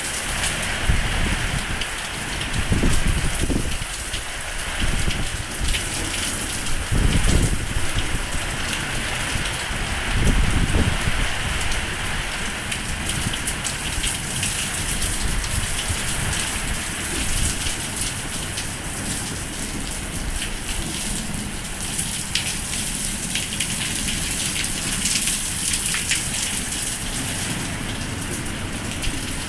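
Heavy downpour of rain pouring steadily onto a terrace, a dense rushing hiss. In about the first ten seconds it is broken by several low rumbling surges.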